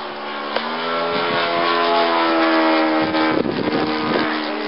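Electric motor and propeller of a radio-controlled model Seafire in flight: a steady buzzing whine that grows louder about a second in as the plane passes closer, its pitch dipping slightly and then holding.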